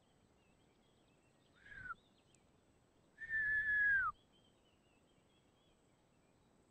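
A person whistling two notes: a short whistle that falls in pitch about one and a half seconds in, then a longer held whistle about a second later that drops sharply at its end.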